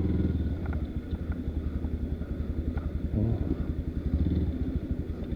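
Enduro dirt bike engine chugging at low revs, with two short blips of throttle near the middle and a few light clicks.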